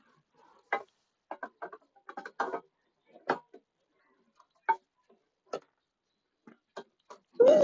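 Irregular light clicks and knocks from motorcycle exhaust parts and hand tools being handled and fitted, with a louder knock just before the end.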